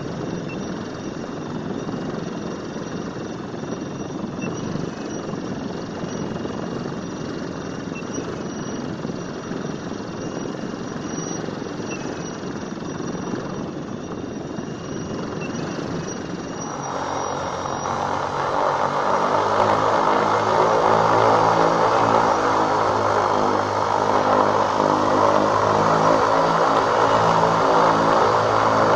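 Razeebuss Radicall V3 electric paramotor's motor and propeller running steadily under power, a whirring drone. About seventeen seconds in it becomes louder, with a steady pitched hum over the propeller noise.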